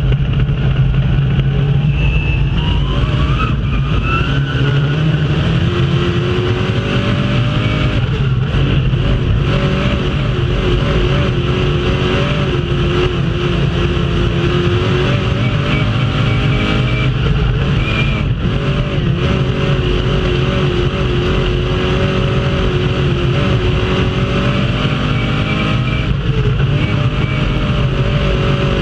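Dirt-track race car engine heard from inside the cockpit at racing speed, running loud, its pitch climbing and dropping again several times as the driver goes on and off the throttle around the laps.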